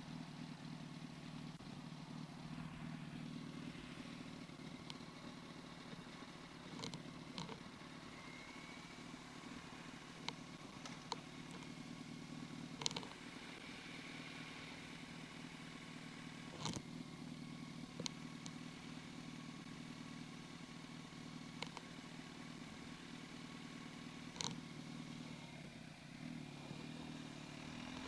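Yamaha R1's inline-four engine idling with a quiet, steady hum. About eight sharp clicks come at irregular intervals over it.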